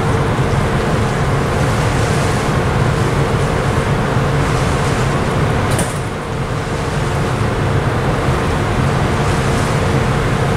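Steady low rumble of ship engines and machinery with a constant humming tone. About halfway through, a brief click and a short dip in level.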